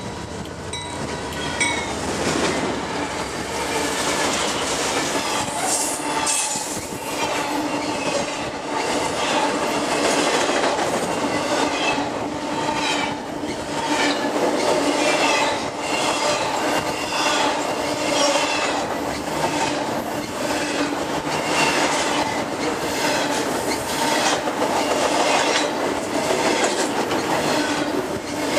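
Double-stack intermodal freight train rolling past close by on a steel deck bridge. The GE lead locomotive comes through first, rising in level over the first couple of seconds. Then the loaded well cars follow with a steady, rhythmic clickety-clack of wheels over the rail joints and short, high-pitched wheel squeals.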